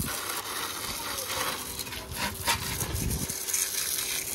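A home-made pressure washer pump running with a faint steady hum while water sprays from the gun, and a few light knocks about halfway through.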